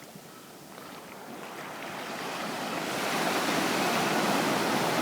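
Surf washing on a beach: a steady rush of waves that swells louder over the first three seconds and then holds, with wind on the microphone.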